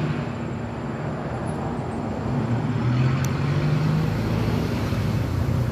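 Road traffic: a motor vehicle engine running with a low steady hum over tyre and road noise, the hum growing a little louder past the middle.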